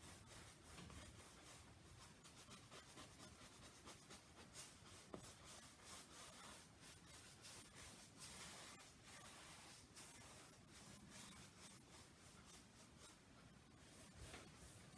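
Faint, irregular brushing and scratching of a wet flat paintbrush dragged across a stretched canvas, blending acrylic paint.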